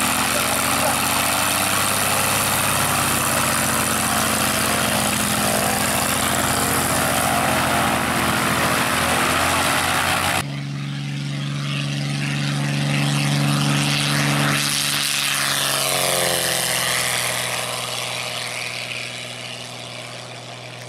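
Piston engine of a light single-engine propeller plane running loudly and steadily close by. After a cut about ten seconds in, the engine drone comes again with its pitch shifting as the plane passes, then fades near the end.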